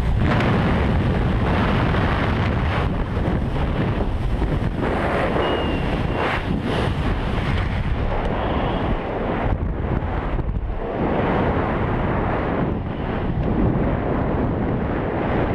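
Strong wind rushing over the microphone as a skydiver leaves the aircraft and falls, carrying on under the parachute once it opens. The noise stays loud and even, and the highest hiss fades about halfway through, once the canopy is open and the fall has slowed.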